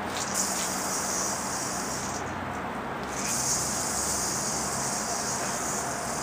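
A yo-yo spinning on its string, giving a steady high hiss. The hiss stops for about a second near the middle, when the throw ends, then starts again with the next throw.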